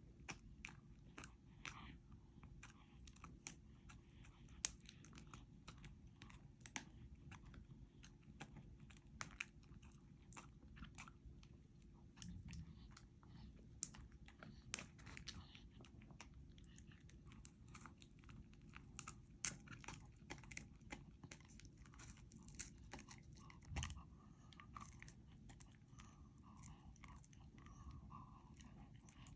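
A senior dachshund chewing a whole green-lipped mussel: irregular, sharp crunches and clicks of the shell between its teeth, with short pauses.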